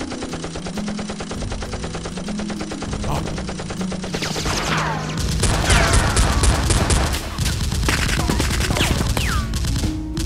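Rapid machine-gun gunfire sound effects firing in long bursts over background music, with falling whistling sweeps in the middle. The firing gets louder and denser about five seconds in.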